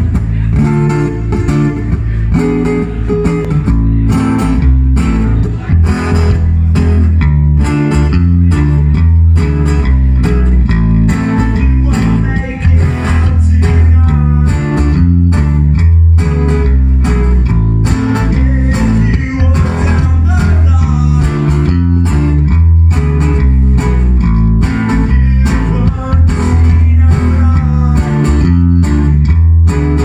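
Live band playing a song loudly on two strummed acoustic-electric guitars over an electric bass guitar, with a steady beat.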